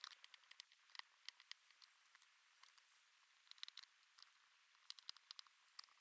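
Faint, irregular small clicks and ticks of a Phillips screwdriver working the screws out of a MacBook's metal bottom case, in little clusters with quiet gaps between.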